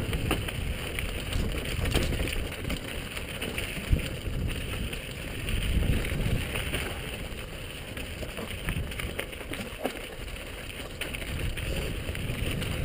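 Downhill mountain bike riding fast over a rocky dirt trail, heard from a helmet-mounted camera: steady tyre and trail noise with the bike rattling, and a few sharp knocks as it hits rocks, the clearest about four seconds in and near ten seconds.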